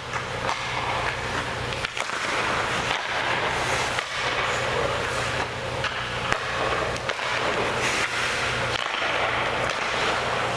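Ice hockey goaltending drill: skate blades scraping the ice as the goalie moves in the crease, with a few sharp knocks of stick or puck, over a steady rink hum.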